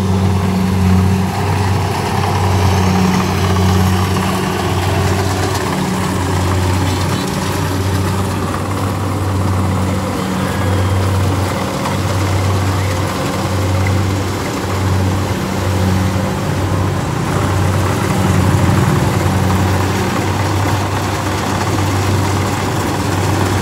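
Rice combine harvester's engine running steadily under load as the tracked machine cuts rice through soft mud. It makes a loud low drone that swells and dips every second or so, over the clatter of the cutting and threshing.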